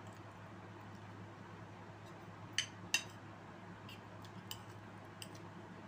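Tableware clinking: two sharp clinks a little under a second apart about halfway through, then a few fainter clicks, over a low steady hum.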